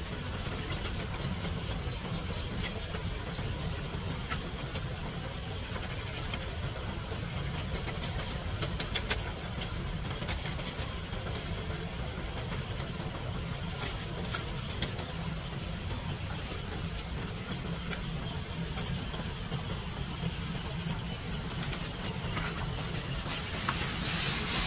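A small hand rake scraping and tapping on a metal street-drain grate, heard as scattered sharp clicks over a steady low rumble.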